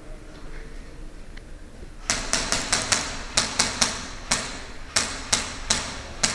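Airsoft gunfire: about a dozen sharp shots fired singly in quick, irregular succession, starting about two seconds in, roughly three a second.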